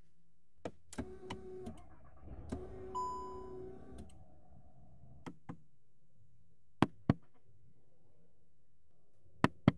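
Car cabin controls being worked: a few light clicks and a short electric whir, a single electronic beep about three seconds in, then three pairs of sharp clicks.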